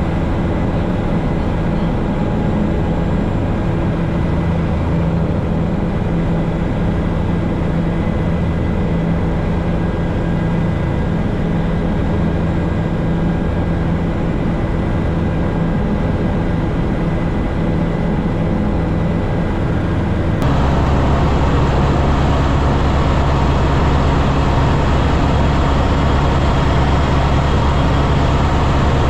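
Helicopter in flight: steady engine and rotor noise with a fixed high whine. About twenty seconds in, the sound changes abruptly to a louder, deeper drone.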